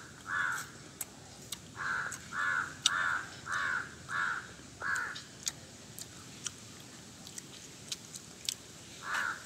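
Crows cawing: a run of about eight caws in the first five seconds, then two more near the end. A few sharp clicks fall between the calls.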